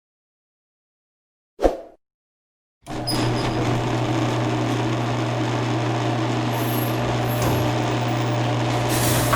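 A single click, then an electric garage door opener's motor starts and runs steadily with a low hum and the rattle of the door travelling for about six and a half seconds, ending with a louder clatter as it stops.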